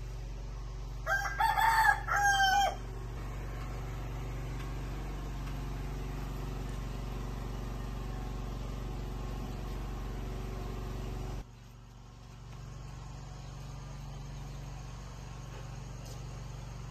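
A rooster crows once, a two-part cock-a-doodle-doo starting about a second in. Under it runs a steady low hum that drops away suddenly about eleven seconds in.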